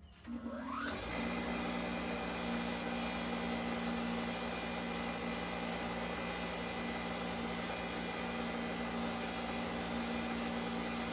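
An electric motor starts, spins up with a rising whine over about a second, then runs at steady speed with a constant whir.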